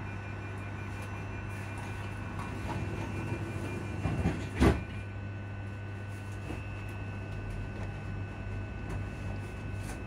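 Traction equipment cooling fans of an Alstom electric multiple unit running while the train stands still, heard from inside the passenger saloon as a steady low hum with several high steady whines. About halfway through a single loud clunk cuts across it.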